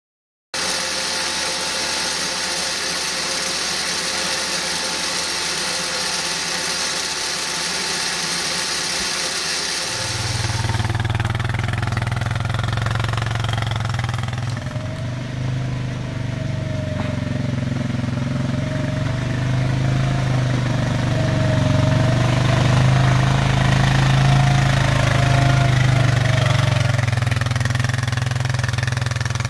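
A quad bike's (ATV's) engine running steadily while it tows a log-hauling trailer loaded with logs, with a higher wavering whine over the engine note. The engine sound comes in about ten seconds in, after a thinner, hissy steady sound that has no deep note.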